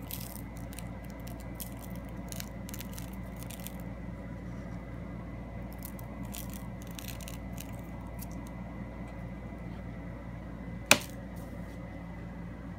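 Light handling noises: scattered short crackles and rustles over a steady low hum, with one sharp click about eleven seconds in.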